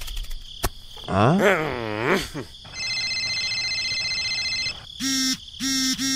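Cartoon sound effects: a wobbly pitched squeal sliding up and down, then a phone ringtone trilling steadily for about two seconds, followed by four short beeping rings.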